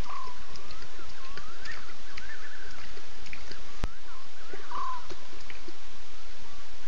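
Night-time animal calls: short chirps that rise and fall, repeated every second or so over a steady hiss. A single sharp click comes a little under four seconds in.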